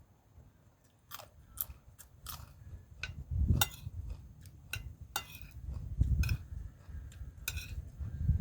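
A person eating close to the microphone: a string of sharp crunches as food is bitten and chewed, with heavier, lower chewing sounds a few times.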